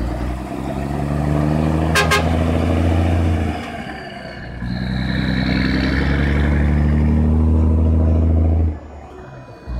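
Scania L111 truck's 11-litre six-cylinder turbodiesel pulling away under load with a trailer, a steady deep engine note. It dips for about a second around three and a half seconds in, then pulls again. Two quick sharp pips come about two seconds in, and the sound cuts off near the end.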